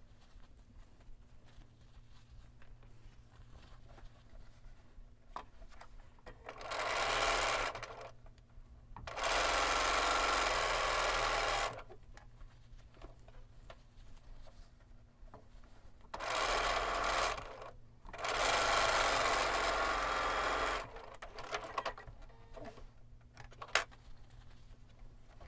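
Bernina B 770 Quilters Edition sewing machine stitching seams in four runs: a short run and then a longer run, with the pair repeated, each lasting about one and a half to two and a half seconds. Between the runs there is quiet fabric handling, and a single sharp click comes near the end.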